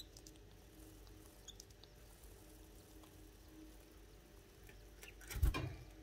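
Faint, scattered high cheeps and small scratching sounds from canaries at a nest feeding chicks, over a low steady hum, then one brief loud rustle about five and a half seconds in.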